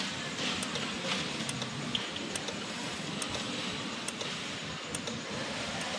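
MIQI sewing-machine servo motor's control box making a repeated faint 'cetek cetek' clicking, roughly once a second, over a steady hiss while switched on. The clicking comes with the unit's fault: the indicator display will not light and the motor cannot be used to sew. The owner traces the clicking to a switch on the controller board.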